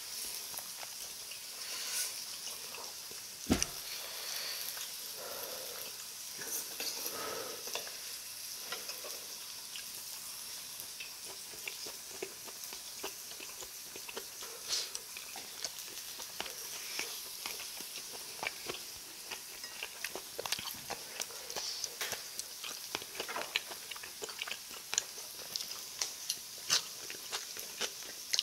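Beef, scallop adductor and mushroom pieces sizzling on a hot round grill pan, a steady hiss, with scattered clicks of chopsticks and utensils and a sharp knock about three and a half seconds in.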